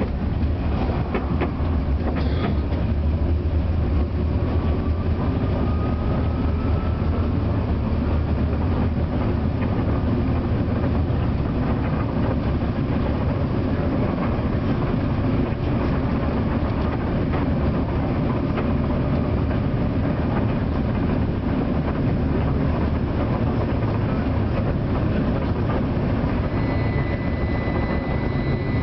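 Tram riding along its track, heard from on board: a steady rumble of wheels on rails. A faint rising whine comes a few seconds in, and a thin high whistle sets in near the end.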